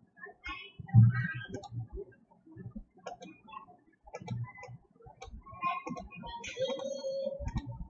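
Computer mouse clicking at irregular intervals, with a louder low thump about a second in and some faint pitched sounds in the background.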